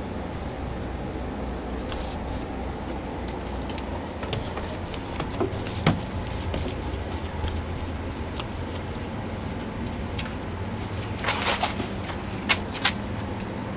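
Paintbrush working paint onto a door, faint scrapes over a steady low background rumble, with one sharp click about six seconds in. Near the end comes a quick cluster of clicks and then two sharp taps as the brush is dipped in a metal paint pail.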